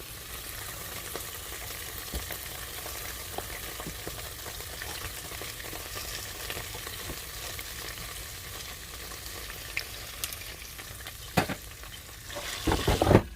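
Air fryer running, a steady fan whoosh with the ribs sizzling and crackling inside. There are small scattered ticks, and a few louder knocks near the end.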